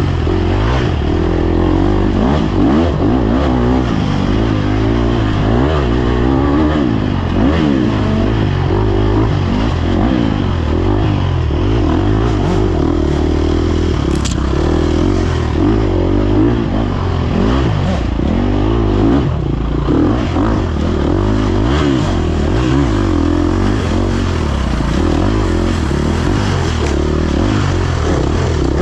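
Off-road racing dirt bike engine heard on board, revving up and down continuously as the rider works the throttle and gears through a trail section.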